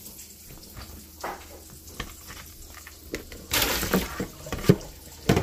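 Kitchen handling sounds at a stainless steel sink: scattered clicks and knocks of a plastic bowl being picked up and set down, a brief rushing noise about three and a half seconds in, and a couple of sharper knocks near the end.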